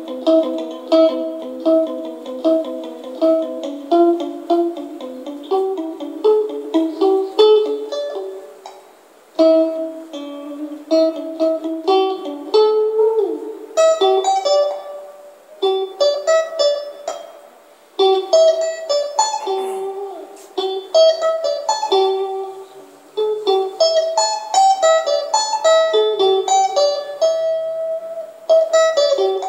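A plucked string instrument playing a melody of single picked notes and short runs, each note ringing briefly. The playing twice falls away for a moment, about a third of the way in and again a little past halfway.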